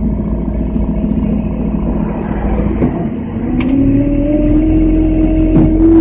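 Engine running steadily, then revving up a little past halfway and holding at the higher speed, with a single sharp click just after the rev begins.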